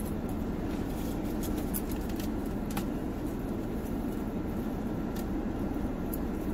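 Steady hum of a car's air conditioning running with the engine idling, heard inside the cabin, with a few faint clicks and rustles as a cardboard food box is handled.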